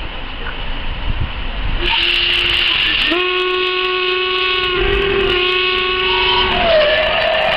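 Steam locomotive whistle blown as a steam train runs into the station: one long, pitched blast of about three and a half seconds, with a lower wavering note near the end. Hiss and train noise rise just before it.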